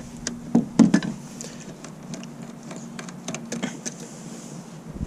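Hand tools clicking and knocking on metal engine parts as a top cover is taken off a car engine, with a couple of louder knocks about a second in, over a faint steady hum.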